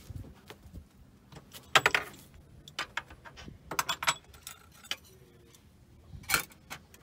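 Height-adjustable van table being wound down: a string of sharp clicks and knocks from its mechanism, the loudest about two seconds in, with more clusters near four and six seconds.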